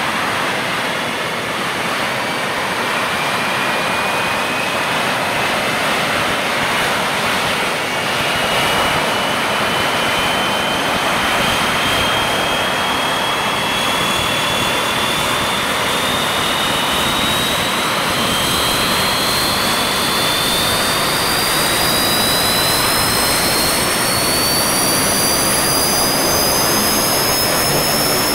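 Antonov An-26's Ivchenko AI-24VT turboprop engine starting up: a steady rush of turbine noise, with a whine that climbs steadily in pitch as the engine spools up and the four-blade propeller speeds up.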